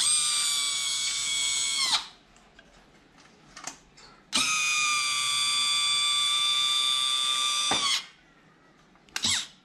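Electric motor of a Yamaha 9.9 hp outboard's hydraulic power-tilt unit whining as it drives the ram and swings the tilt bracket. It makes a run of about two seconds, a longer run of about three and a half seconds, and a brief blip near the end, its pitch dropping as each run stops.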